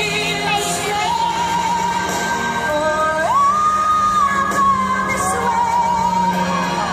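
A song played over loudspeakers, with a singing voice holding long notes; the melody steps up about three seconds in and drops back near the end.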